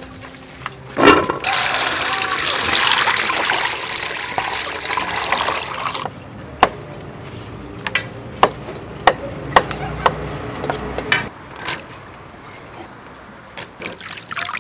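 Water pouring into a steel bowl of cut yardlong beans for about five seconds, then hands sloshing the beans in the water, with scattered light clicks and splashes.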